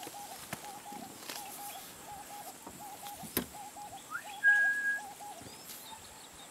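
A bird calls a steady series of low double notes, a little more than one a second, stopping about five seconds in. A short, loud, steady whistle sounds about four and a half seconds in, and there is a single sharp knock a second before it.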